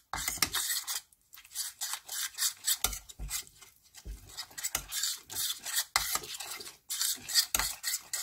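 Metal spoon scraping and rubbing against the bottom of a stainless steel pot in repeated, irregular strokes. It is stirring gochujang and chili powder into a thick seasoning paste with a little stock.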